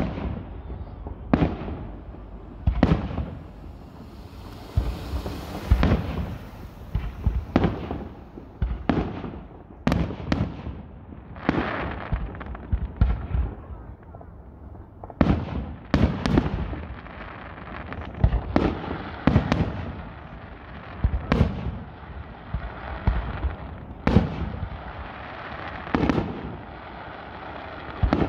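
Aerial firework shells bursting one after another, a sharp bang every second or two, during a fireworks display.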